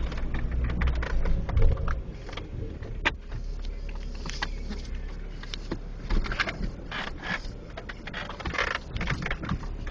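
Off-road vehicle driving slowly over a rough trail: a low engine rumble, strongest in the first two seconds, with scattered knocks, creaks and rattles from the body and suspension.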